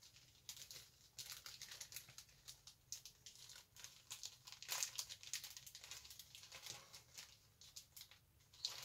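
Faint, irregular crinkling of a thin plastic bag being handled: the bag that holds a model kit's plastic sprues. It is loudest about halfway through.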